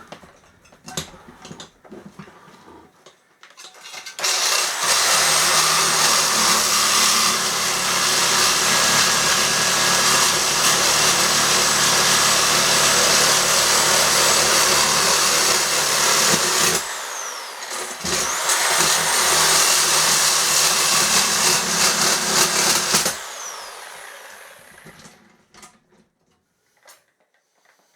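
Power saw cutting through an office chair leg: a few seconds of clattering handling, then the saw runs steadily for about twelve seconds, stops and winds down, starts again about a second later for five more seconds and winds down to a stop.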